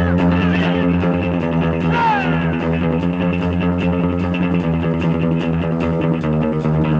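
Instrumental film-song music with guitar and bass over a steady beat, with a falling pitch slide about two seconds in.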